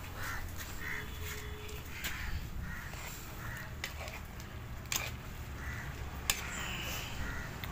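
Crows cawing repeatedly, with a few sharp clicks partway through, over a steady low hum.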